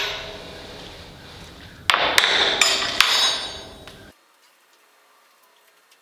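Hammer blows on steel truck frame rails. A ringing strike fades out at the start, then about two seconds in come four quick strikes, each followed by a metallic ring. The sound cuts off abruptly about four seconds in.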